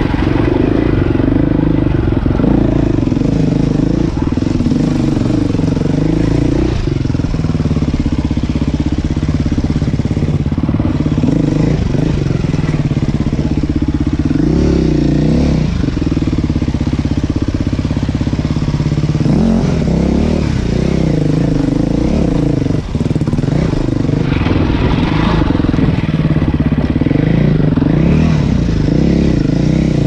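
Dirt bike engine running under constantly changing throttle while riding a rough trail, its pitch rising and falling again and again.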